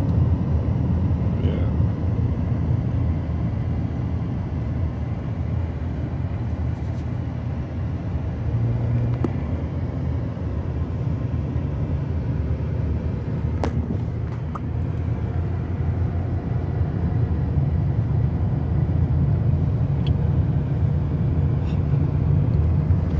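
Steady low rumble of a car driving, engine and road noise without a break, with a faint click or two along the way.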